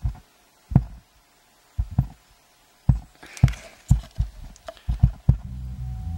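Music passed through a subwoofer low-pass filter preamp board, so that only deep bass thumps come through, at uneven spacing. A brief hiss comes about halfway, and a steady low bass drone joins near the end. The signal is coming through while the board's faulty volume potentiometer shaft is pressed down.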